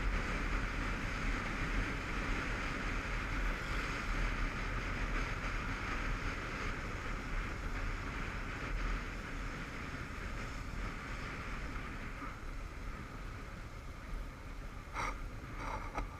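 Honda CBF500 motorcycle ridden at town speed, heard from a helmet camera: a steady rush of wind over the microphone over the engine's low rumble. It gets quieter from about twelve seconds in as the bike slows, with a couple of brief knocks near the end.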